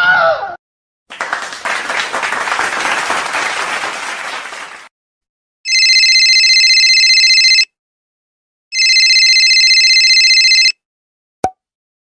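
A run of separate sound effects. The end of a painful scream, falling in pitch, comes in the first half-second, then about four seconds of dense noise that fades out. Then a telephone bell rings twice, each ring a rapid trill of about two seconds, with a second's gap between. A short click comes near the end.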